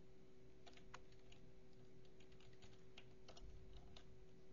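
Faint typing on a computer keyboard: scattered keystrokes, irregularly spaced, over a low steady hum.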